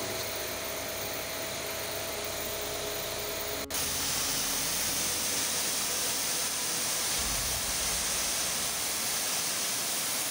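Electric pressure washer running with a steady hum and a thin steady tone. About a third of the way in the sound cuts abruptly to the louder, steady hiss of its high-pressure water jet spraying against a surface.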